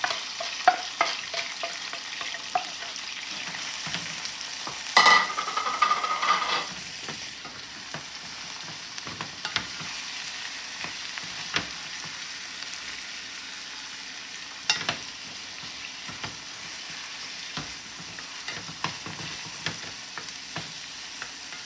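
Food sizzling in hot oil in a pot while a spoon is stirred through it, clicking and scraping against the pot. About five seconds in comes a louder scraping stretch lasting over a second, with a squeal in it.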